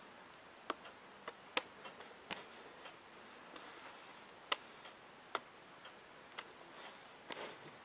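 Faint, sharp clicks, about a dozen spaced unevenly, over a quiet room background.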